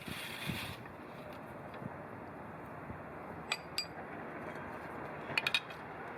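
Light metal-on-metal clinks from working the restored cast-iron bench vise: two sharp clinks about a third of a second apart past the middle, then three quick ones near the end.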